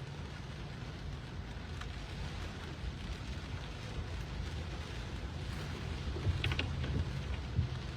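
Steady low rumble of road traffic, with wind buffeting the microphone. A short squeak and a couple of clicks come a little after six seconds.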